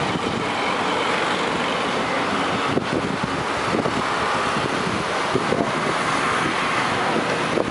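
Steady road traffic noise from cars on a busy town street.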